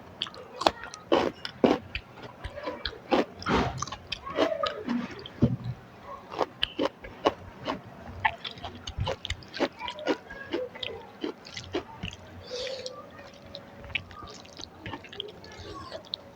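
Close-up chewing and mouth sounds of a person eating a rice meal with curry, made up of many short, sharp clicks and wet smacks at an uneven pace.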